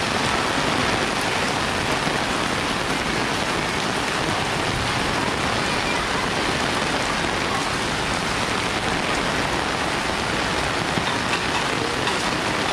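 Heavy rain falling steadily, a dense, even hiss of rain on surfaces.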